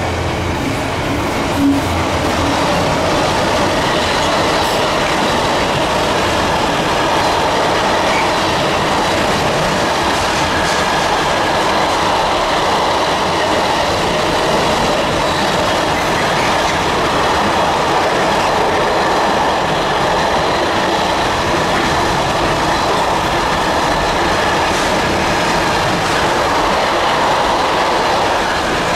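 Container wagons of a freight train rolling past at speed: a loud, steady clatter and rumble of wheels on rail, with a faint high whine, and a single knock about two seconds in. The locomotive's diesel fades away in the first second.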